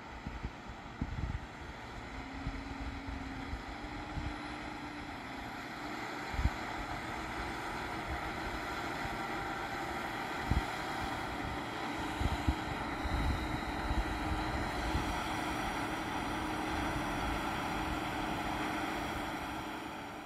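Case IH Quadtrac 540 crawler tractor's diesel engine working steadily under load while pulling a six-furrow plough, heard across the field and growing gradually louder, with wind buffeting the microphone.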